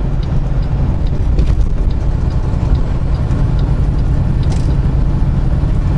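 Semi truck cruising at highway speed, heard from inside the cab: a steady low drone of engine and road noise.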